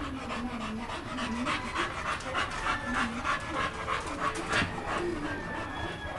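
American pit bull terrier panting with mouth open, quick regular breaths at about three a second.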